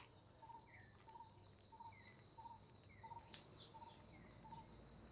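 Faint outdoor birdsong: one bird repeats a short note about three times a second, and other birds add scattered short falling chirps.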